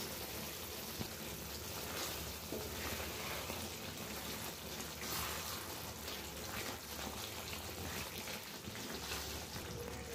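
Chicken curry gravy simmering and sizzling in a pan, with a spoon stirring through it.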